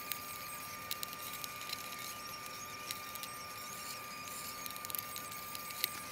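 Light, irregular scratching and ticking of a hobby knife scoring the covering film on a model aircraft wing, with a faint steady high whine behind it.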